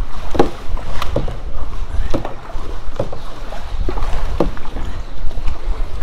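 Canoe paddling: paddle strokes give sharp, irregular knocks and splashes about once or twice a second, over a steady low rumble.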